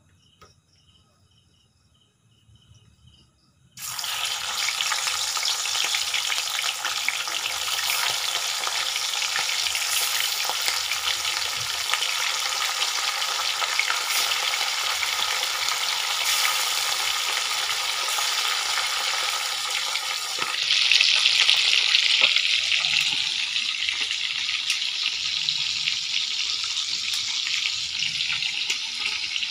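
Fish pieces frying in hot mustard oil in a kadai: a sudden loud sizzle starts about four seconds in as the fish goes into the oil, then keeps on steadily, growing brighter and hissier for a couple of seconds about twenty seconds in.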